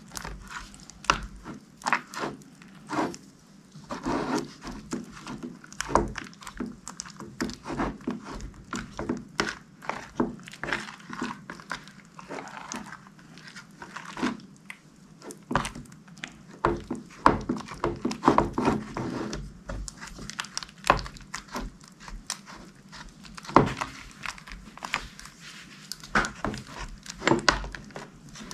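Hands squishing and stretching slime, making irregular sticky clicks and pops, several a second, in uneven bursts.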